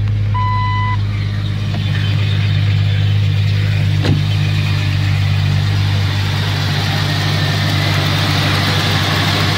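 Jeep engine idling steadily just after starting. One short electronic chime from the dashboard sounds near the start.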